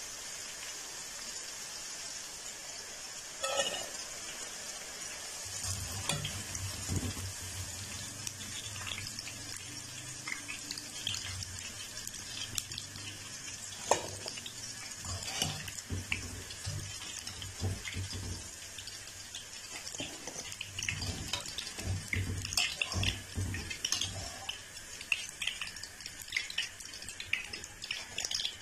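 Okra sizzling as it deep-fries in hot oil in a metal karahi, with a wire-mesh skimmer scraping and clinking against the pan as the okra is scooped out. The clinks come irregularly over the steady sizzle, a few sharper knocks standing out.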